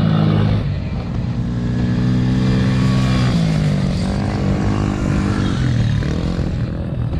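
Youth ATV engines racing on a dirt track, pitch rising as riders throttle up and dropping as they back off, about three seconds in and again near the end.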